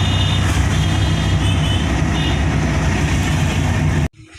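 Loud, steady engine-like hum, with a high-pitched tone that sounds in several short stretches during the first couple of seconds; the sound cuts off abruptly near the end.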